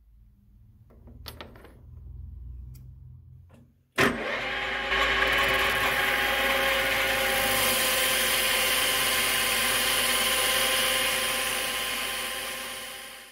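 Metal lathe running with a grooving tool cutting into a spinning metal bar: steady machining noise with several held whining tones. It starts suddenly with a click about four seconds in, after a few faint clicks.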